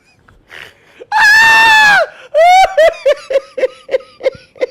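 A woman's loud, high shriek held for almost a second, then a run of quick laughs, about four a second, falling in pitch.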